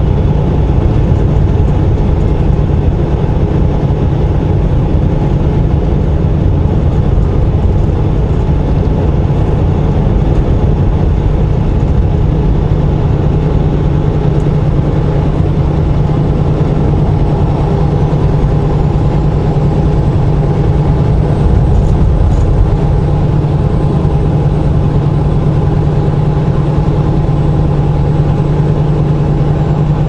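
Semi truck's diesel engine and road noise droning steadily from inside the cab at highway cruising speed.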